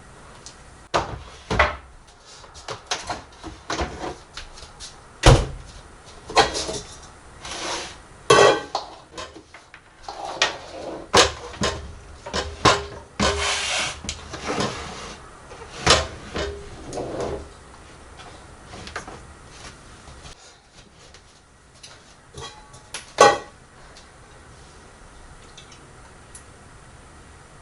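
Kitchen work: dishes and utensils being handled, giving a run of irregular knocks and clatters with a few seconds of steady hiss around the middle. The sharpest knocks come about five seconds in and again near twenty-three seconds, and it is quieter towards the end.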